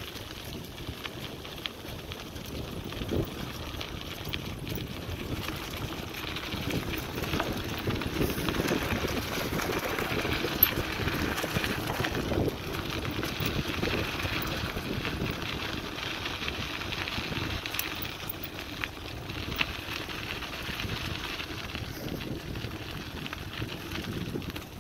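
Bicycle tyres rolling over dry fallen leaves and a dirt path: a continuous crackling rustle, louder in the middle.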